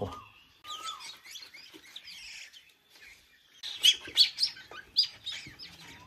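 Magpie nestlings giving high begging chirps while being fed. The calls are faint at first, then come in a louder flurry about four seconds in.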